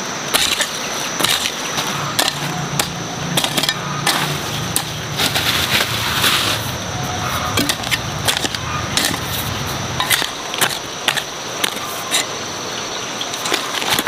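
Hand hoe chopping into dry, stony soil in repeated strokes at an uneven pace, each blow followed by clods scraping and tumbling.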